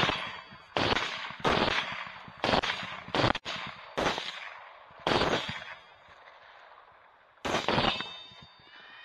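AR-platform rifle shots fired one at a time at uneven intervals, about eight in all, several in quick succession, then a pause before a last shot near the end. Each is a sharp crack with a short echo.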